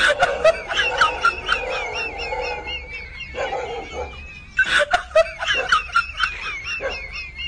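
A person laughing in two bouts of quick, repeated bursts. A thin, wavering high chirping runs underneath throughout.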